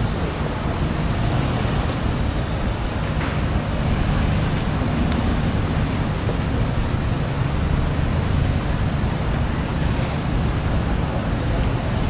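Steady road-traffic din with a few faint clicks.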